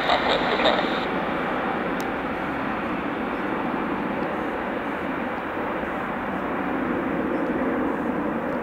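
Jet engines of an Airbus A330-200 at takeoff power as it climbs away just after takeoff: a steady, rushing engine noise with no distinct pitch.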